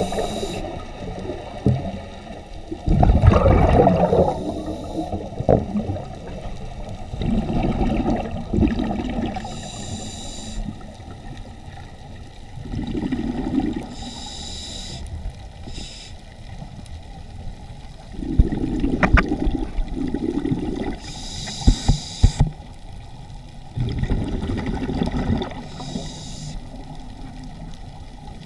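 Scuba diver breathing through a regulator underwater: a short hiss on each inhale, then a rumbling burst of exhaled bubbles, repeating about every five seconds.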